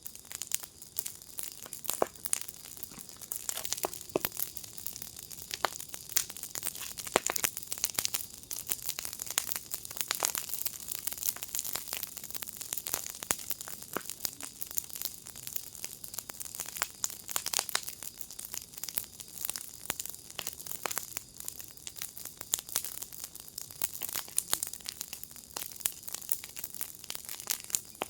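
Fire pit fire crackling: a dense, irregular stream of snaps and pops over a soft hiss.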